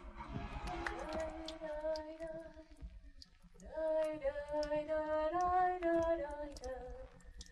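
A voice singing a slow melody unaccompanied, in long held notes, with a short pause about three seconds in, over a low steady hum.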